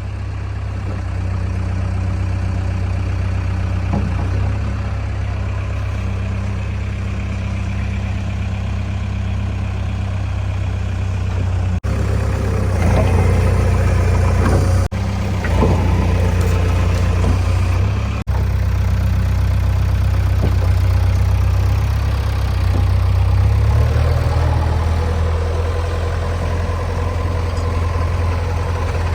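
Heavy diesel engines of a working JCB 3DX backhoe loader and a Sonalika tractor running steadily. The engine note rises for a few seconds about halfway through and again later, broken by a few sudden short dropouts.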